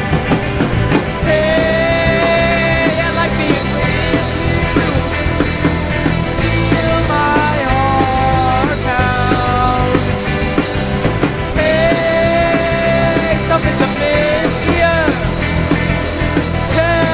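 Indie rock song playing: a full, steady band backing under a lead melody of long held notes that bend at their ends.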